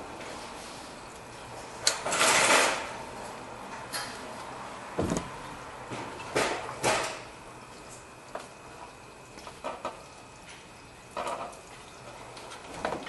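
Metal clinks, knocks and scrapes of a 2006 Ford F350's front brake caliper being worked onto its bracket over new pads by hand, with its bolts being started. The sounds come in irregular short bursts; the longest is a scraping rattle about two seconds in.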